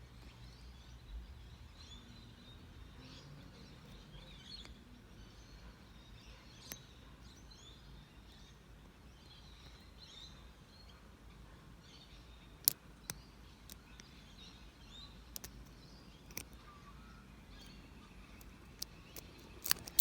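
Birds chirping faintly over a steady low background rumble, with a few sharp clicks, the loudest about two-thirds of the way through and several more near the end.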